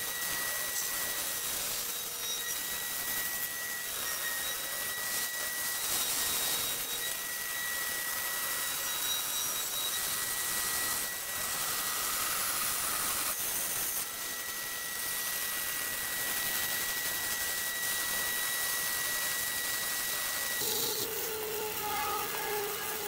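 Bandsaw running and cutting through a thick block of hardwood along a curve: a steady hiss of the blade in the wood with a faint high whine. Near the end the whine stops and a lower hum takes over.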